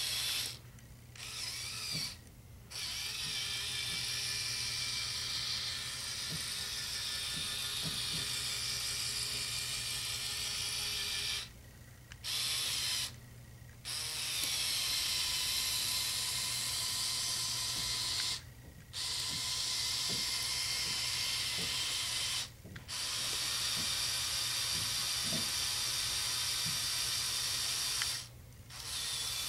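Electric motors and plastic gear trains of a motorized Lego Technic excavator whirring as it drives its tracks, turns and moves its arm, with faint gear clicks. The whir stops and restarts about six times, in brief pauses of up to a second.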